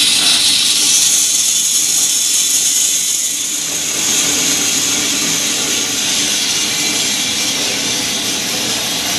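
Green coffee beans poured from a metal bowl through the hopper into the hot drum of a small 1 kg drum coffee roaster. They make a steady rushing rattle that begins abruptly and carries on as the beans slide in and tumble in the turning drum with the roaster running.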